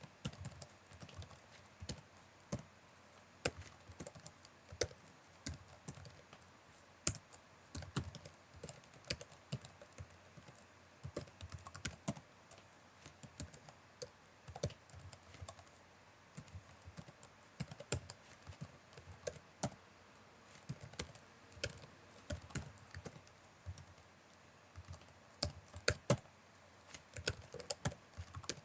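Typing on a computer keyboard: irregular key clicks, several a second, with a quick flurry of keystrokes a little before the end.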